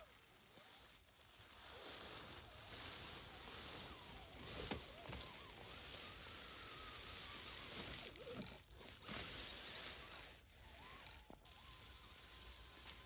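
Dry leaf litter rustling and crunching as small RC crawler trucks drive over it, with irregular swells in the rustle.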